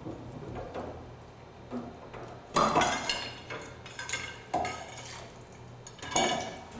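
Metal-on-metal clinks and clanks from copper pipe and plumbing tools being handled: a few sharp knocks with a short ring, the loudest cluster a few seconds in and another near the end.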